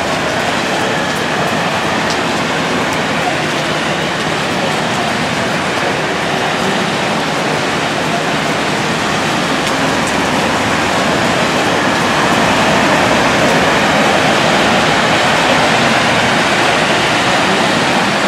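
Heavy rain pouring down steadily, a dense even hiss that grows a little louder about two-thirds of the way through.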